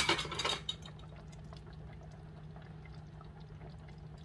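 Curry sauce being scooped and poured with a spoon, a brief wet splashing sound that lasts well under a second at the start, then only a faint low steady hum.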